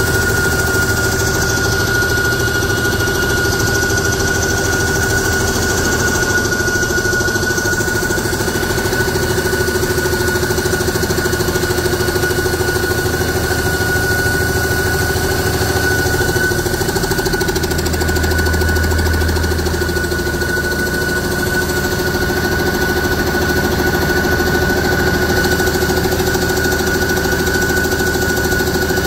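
Remanufactured 2006 Cummins ISB 5.9L six-cylinder diesel engine running steadily at idle on a test stand, with the even clatter of diesel combustion and a steady high whine over it.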